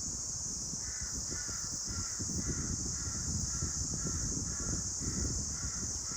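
A bird calling in a steady series of short calls, about two a second, beginning about a second in, over gusting wind rumbling on the microphone and a steady high hiss.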